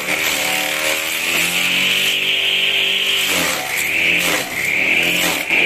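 Motor-driven grass chopper running and cutting grass stalks as they are fed in, a steady machine drone with a cutting hiss. Its pitch sags briefly about three times, a few seconds in, as the load comes on.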